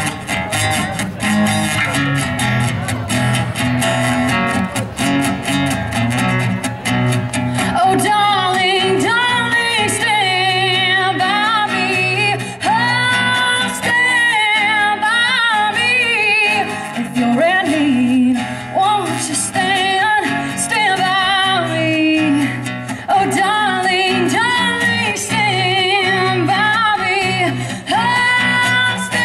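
Acoustic guitar strummed live, with a woman's singing voice coming in about eight seconds in and carrying a wavering, vibrato-laden melody over the guitar.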